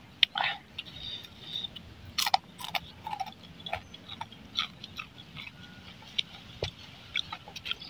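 Crispy deep-fried pandan leaf fritters crunching and crackling as they are broken apart: irregular sharp cracks, several a second at times.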